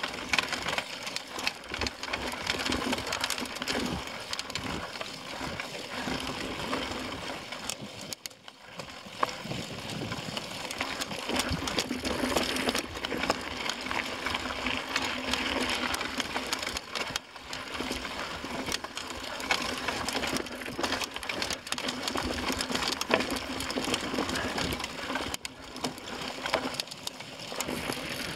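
Mountain bike riding over rough dirt and rocky singletrack: the tyres crunching on the trail and the bike rattling with a constant clatter of small knocks, easing briefly three times.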